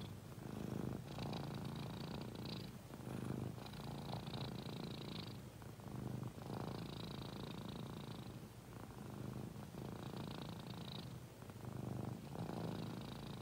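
Tabby cat purring steadily, the purr swelling and easing in waves about every three seconds with its breathing.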